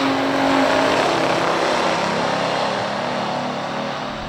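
Big-block V8 drag-racing engine running hard, a dense, loud exhaust sound with steady engine tones in the first second that then smear out, the level slowly easing.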